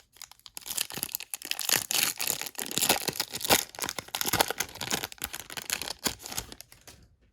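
Trading card pack wrapper being torn open and crinkled, a dense crackling that runs for about six seconds and stops shortly before the end.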